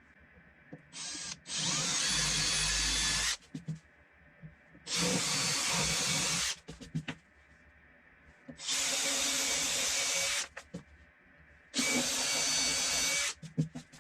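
A power drill running in four bursts of about one and a half to two seconds each, with short pauses between them.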